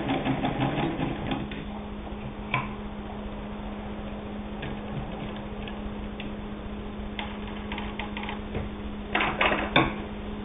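Singer 66 Red Eye hand-crank sewing machine stitching wool blend fabric: a quiet, fast, even clatter of the needle and stitch mechanism, with no motor noise, over a steady low hum. A few louder clicks come near the end.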